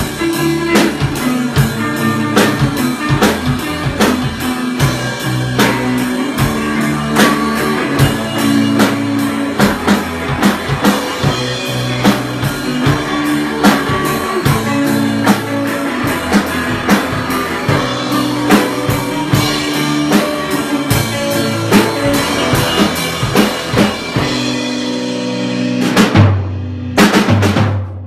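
A live band plays: a hollow-body electric guitar over a drum kit with a steady beat. Near the end the music breaks off into a few short final hits as the song ends.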